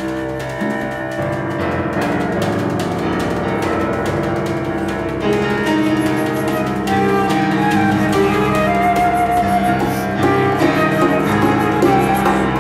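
Concert flute playing a sustained melody over grand piano in a live contemporary classical trio, growing louder about five seconds in.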